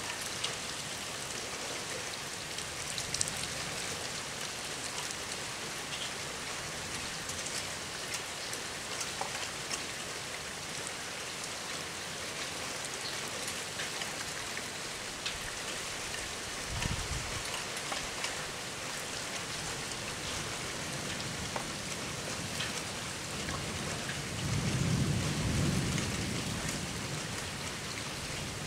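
Steady rain falling, with individual drops ticking close by. Low thunder from a winter squall-line storm rumbles briefly about 17 s in, then longer and louder near the end.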